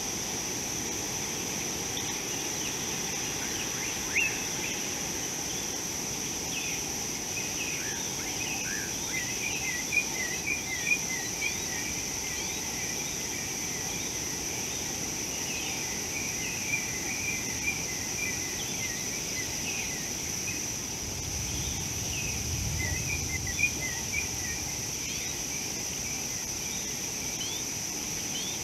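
Outdoor ambience: a steady high-pitched insect drone with small birds chirping in quick runs of short notes, and a low rumble a little past two-thirds of the way through.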